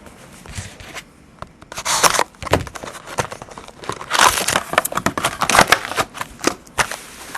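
Plastic wrapping being torn and crinkled by hand as a sealed box of trading cards is opened: bursts of crackling that start about two seconds in and keep coming.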